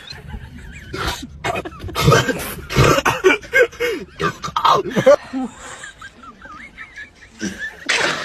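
Coughing and laughing in quick succession, with many short, sharp bursts and a loud one near the end.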